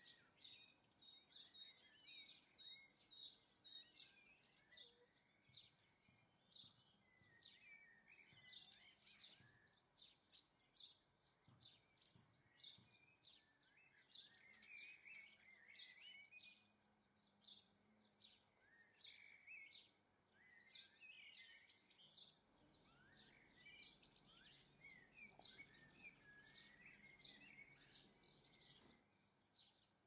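Faint chirps and twittering calls of small garden songbirds, many short high calls following one another throughout.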